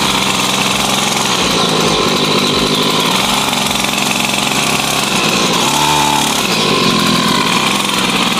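Small 49cc two-stroke engine of a kids' mini dirt bike running as it is ridden at low speed, its engine speed wavering with the throttle and dipping briefly about six seconds in before picking up again.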